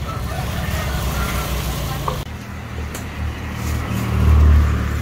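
A motor vehicle's engine running nearby at a roadside, a low rumble that swells louder about four seconds in, with faint voices of people at the stall.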